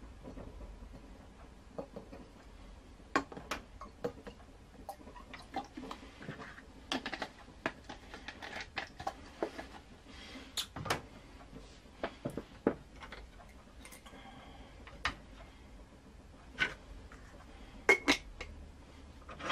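Glass and metal parts of a glass siphon coffee maker handled and fitted together: scattered sharp clinks and light knocks, irregular throughout.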